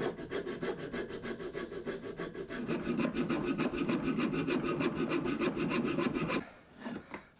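Coping saw cutting through a thick beech block with quick, even back-and-forth strokes; the sawing stops about six seconds in.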